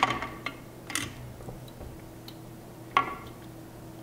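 Plastic clicks and taps from tubing being handled and pushed into the quick-connect fittings of a reverse osmosis automatic shut-off valve. There are a few sharp clicks, the loudest about three seconds in, over a faint steady hum.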